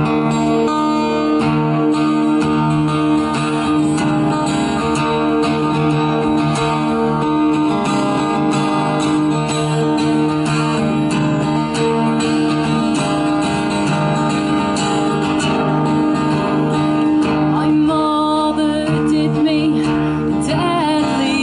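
Acoustic guitar strummed steadily in repeated chords, and a woman's singing voice comes in near the end.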